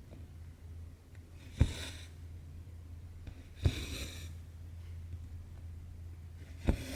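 Hand cross-stitching on Aida cloth: three times a sharp tick as the needle goes through the fabric, each followed by a short swish of cotton thread drawn through, over a steady low hum.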